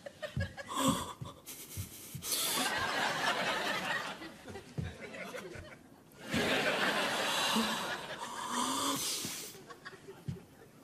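Studio audience laughing in two waves, the first about two seconds in and the second, louder one a little past the middle, with quieter gaps between.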